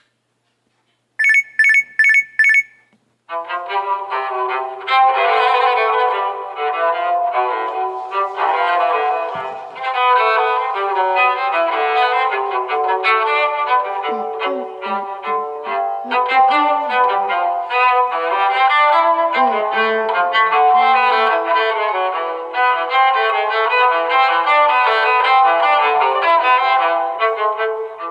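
Phone alarm tones previewed in turn: four quick high electronic beeps, then after a short pause a melodic instrumental alarm tone that plays on without a break.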